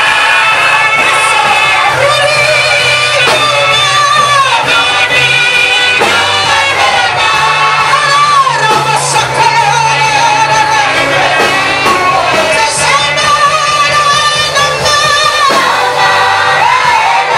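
Gospel worship song: sung vocals with vibrato carrying the melody over a band with sustained bass notes, continuous and loud.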